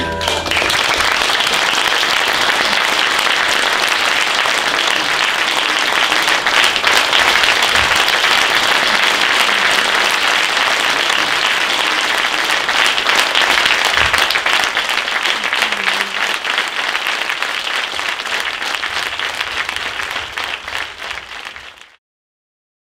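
Audience applauding, a dense, steady clapping that thins out near the end and then cuts off abruptly.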